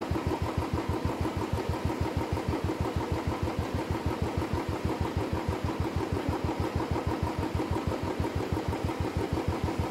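An engine idling steadily with an even, rapid throb of about six beats a second.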